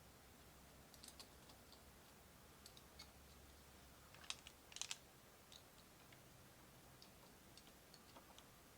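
Faint, scattered clicks and taps of small parts being handled as the screws of a steering wheel's spring-loaded horn plate are lined up and started. There is a short cluster of louder clicks about four to five seconds in, over near silence.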